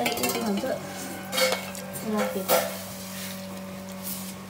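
Serving spoons clinking and scraping against stainless steel serving bowls, with a few sharp clinks, over a steady hum.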